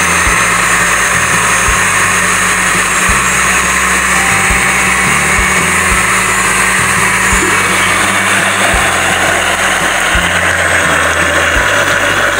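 Countertop blender motor running steadily at speed, whirring as it purées a runny barbecue-sauce marinade.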